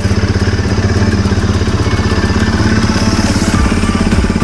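BMW G450X's single-cylinder four-stroke engine idling steadily, purring smoothly, with a little more exhaust hiss near the end.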